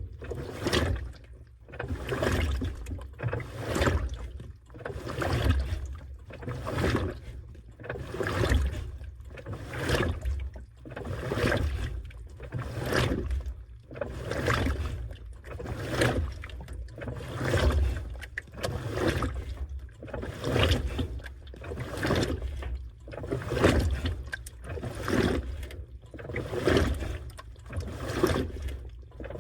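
Washing machine in its wash cycle, sloshing water and laundry back and forth in regular surges about once a second over a low rumble.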